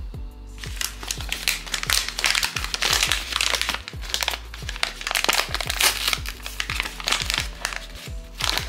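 Blind-box packaging being crinkled and handled, a dense run of irregular crackles, over background music with a steady beat.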